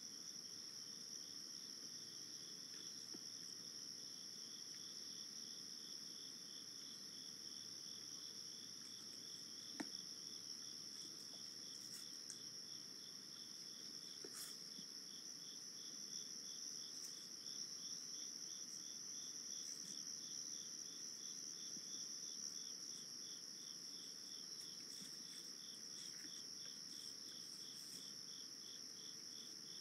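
Night chorus of crickets and other insects: a steady high drone with a rapid pulsing chirp beneath it. A single sharp click about ten seconds in.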